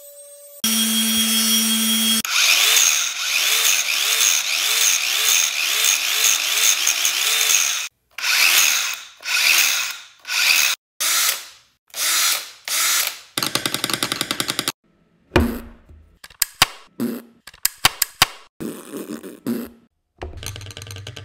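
Power-tool sound effects: a motor starts with a hum, runs steadily for several seconds, then works in a run of short bursts about a second apart. Near the end come a brief fast buzz and a series of sharp clicks and knocks.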